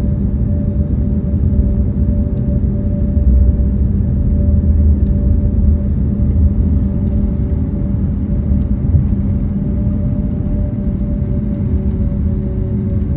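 Airbus A321neo cabin noise from a window seat: the engines hum steadily over a heavy low rumble.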